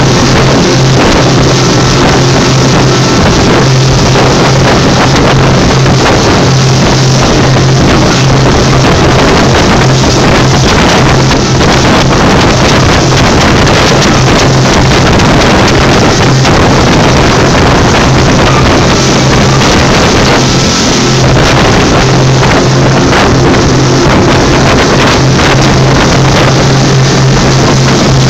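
Motorboat under way at speed: a loud, steady engine drone with the rush of wind and water over it.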